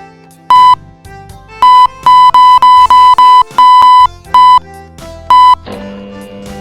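Background music with a run of about ten loud, short electronic beeps, all on the same high note and in an uneven rhythm, with one longer beep in the middle; near the end the beeps stop and the music moves to a new chord.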